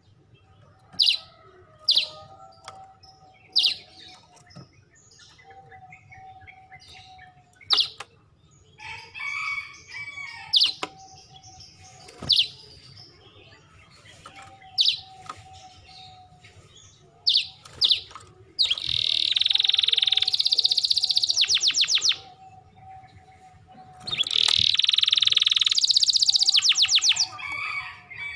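Domestic canary singing: sharp single chirps a second or two apart, then two loud, very fast rolling trills of about three seconds each in the second half.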